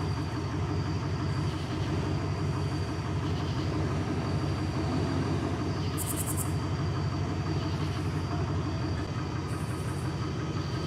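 Vehicle engine idling with a steady low rumble. Twice, a brief high-pitched rapid chirping sounds over it.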